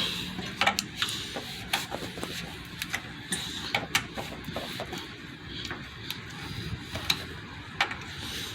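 A tool poking and scraping through sound-deadening mat on a truck's firewall to open up hidden bolt holes: irregular clicks and short scratches.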